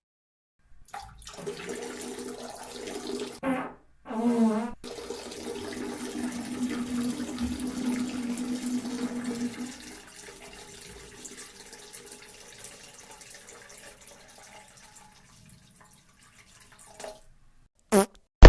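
Long drawn-out fart at a steady low pitch, broken by two louder short blasts around three and four seconds in. It trails off into a faint sputter, and a short sharp fart comes near the end.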